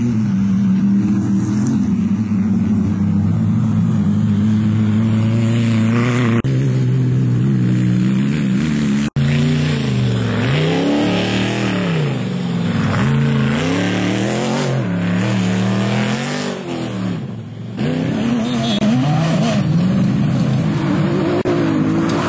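Off-road race car engines revving hard as the cars pass on a dirt track, the pitch climbing and dropping with each throttle and gear change. The sound jumps abruptly between clips, with a sudden break about nine seconds in.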